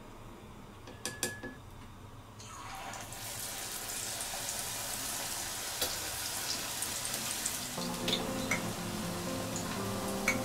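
Tempura-battered enoki mushrooms deep-frying in hot oil: a steady sizzle with scattered crackles that starts about two seconds in, after two light clicks.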